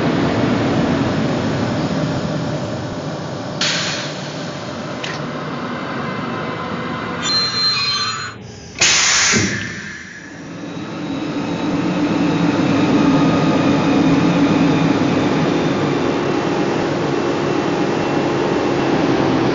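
Sound decoder of a Märklin 39720 / Trix 25160 H0 model of the NS class 1700 electric locomotive playing its electric-locomotive running sounds: a steady motor and fan hum. A few short sharp effects come about four and five seconds in and a loud burst about nine seconds in, after which the hum dips and builds back up.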